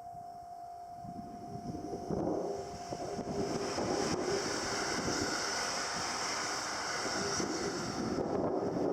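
A train passing over a Japanese level crossing: its running noise and wheel clatter build up about two seconds in and stay loud, while the crossing's warning bell keeps ringing in a steady pulsing rhythm.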